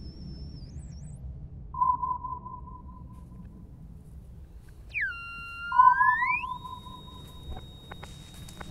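Synthesized electronic tones: a high beep that repeats and fades away, twice. Between the two, a tone swoops down, climbs back up and settles into a steady high whine. A few faint clicks come near the end.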